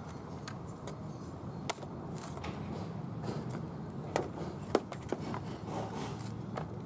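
Honda portable inverter generator running with a steady low hum, with a few sharp clicks and knocks as its power cord is handled.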